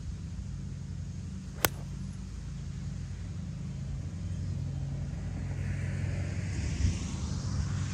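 A 7 iron strikes a golf ball off the tee with one sharp crack about a second and a half in, over a steady low rumble. A rushing hiss swells near the end.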